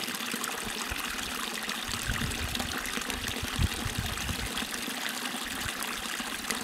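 Running water of a small mountain stream, trickling steadily.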